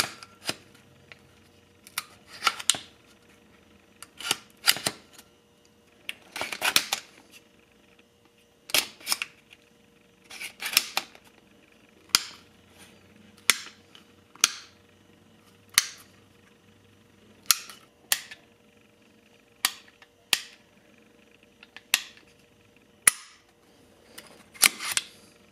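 Sig P322 .22 LR pistol being handled and dry-fired: a series of sharp metallic clicks, single or in quick clusters, about every one to two seconds, with trigger clicks near the end.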